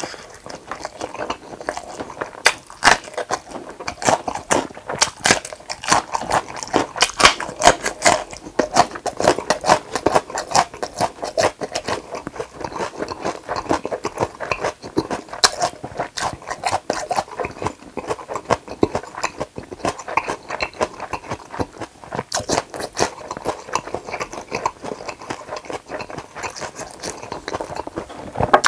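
A person chewing a thick chunk of smoked pork neck close to a clip-on microphone: a dense, uneven run of small wet clicks and smacks of the mouth.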